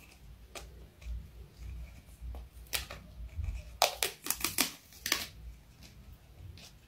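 Cat's claws scratching and picking at textured wallpaper, giving irregular scratchy clicks, with a quick flurry of them about four seconds in.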